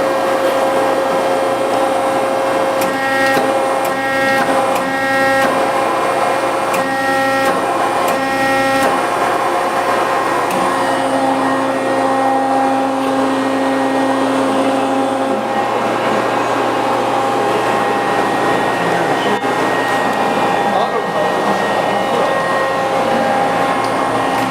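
Hydraulic press brake running: the steady hum and whine of its 5 hp hydraulic pump. Higher tones switch on and off several times in the first third, and a lower tone holds for about five seconds in the middle.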